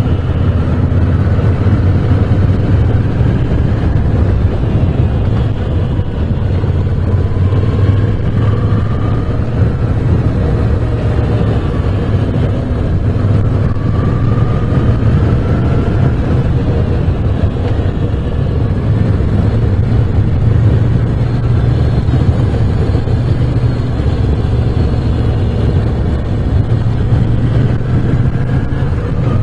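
Moto Guzzi V7 Special's air-cooled transverse V-twin running under way on a winding road. The engine note rises in several pulls as the bike accelerates, then eases off between them.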